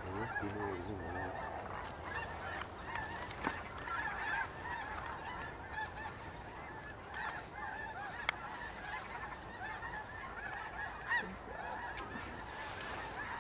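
A flock of geese calling continuously, many short honks overlapping each other.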